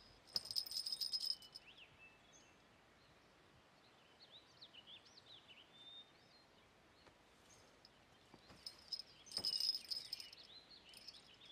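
A small hand bell being shaken, jingling in two short spells: about a second near the start and again, a little longer, near the end. Birds chirp faintly in between.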